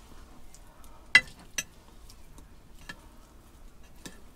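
A few light clicks and knocks of a utensil against a tub as tuna pasta is being mixed, the sharpest about a second in.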